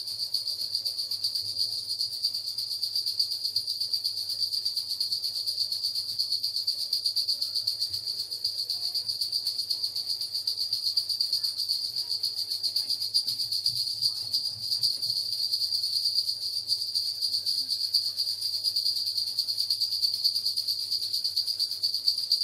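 Continuous high-pitched cricket chirring, a rapid steady trill that does not pause.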